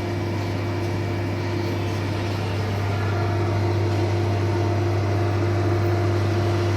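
Microwave oven running with a steady low hum and a fainter, higher steady tone.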